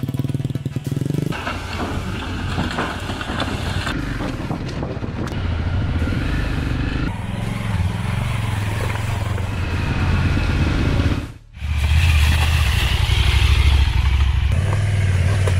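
Adventure motorcycle engines running at low revs, the throttle rising and falling as the bikes crawl over a muddy off-road trail. The sound cuts out sharply for a moment about eleven seconds in, then a louder engine comes back in.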